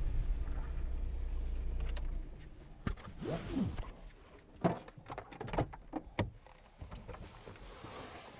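A Volkswagen T5 van's engine running with a low, steady rumble that stops about two seconds in. It is followed by a scatter of clicks and knocks as the driver moves in the cab and unlatches and opens the driver's door.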